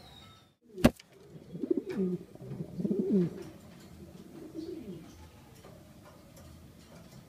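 A sharp click about a second in, then a domestic pigeon cooing: three low coos that bend in pitch, the last one fainter.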